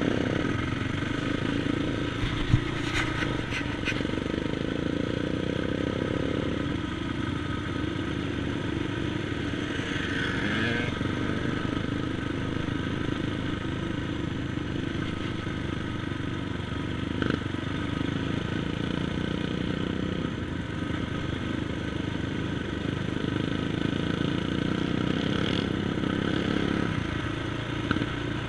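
Sport ATV engine running steadily under way, heard from the rider's own quad, with only slight rises and falls in speed.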